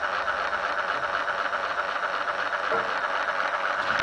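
Lego electric motor running at a steady speed, driving a train of plastic Lego gears with an even whirring.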